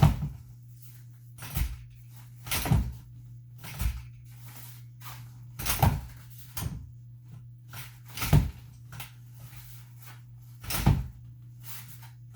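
Playpen frame rails and their plastic latch joints knocking and clunking, about eight sharp irregular knocks, as the top rails are pulled up and worked to lock into place. A steady low hum runs underneath.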